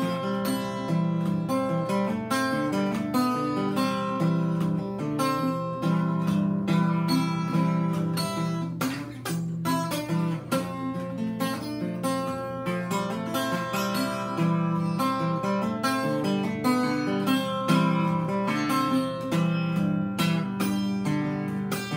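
Solo acoustic guitar fingerpicked in country blues style, a steady alternating bass under a run of plucked melody notes.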